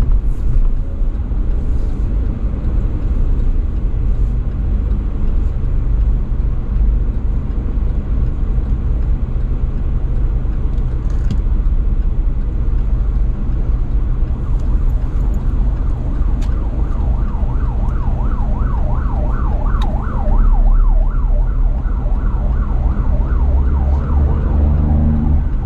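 Steady low rumble of a car driving in slow traffic, heard from inside the cabin. From about two-thirds of the way in, a siren joins, sweeping rapidly up and down at about three sweeps a second for several seconds.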